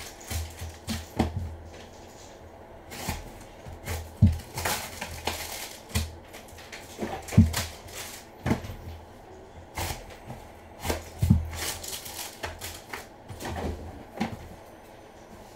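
Cardboard trading-card box and foil-wrapped card packs being handled and set down on a table: scattered irregular taps and knocks, with a short stretch of rustling about five seconds in.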